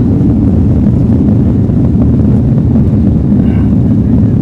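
Jet airliner cabin noise during the take-off roll: the engines at take-off power as the plane accelerates down the runway. It is a loud, steady, deep rumble.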